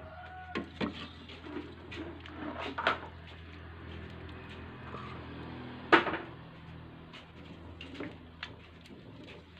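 Metal ladle knocking and clinking against a metal cooking pot and a plastic bowl while soup is served, a handful of separate knocks with the loudest about six seconds in.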